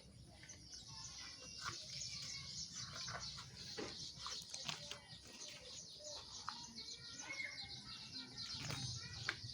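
Small birds chirping, a dense high twittering with scattered short calls, over a low steady rumble.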